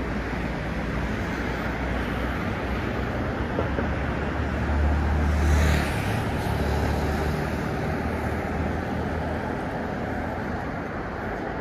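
Steady city road traffic. A vehicle passes close about halfway through, its deeper rumble and tyre rush swelling briefly.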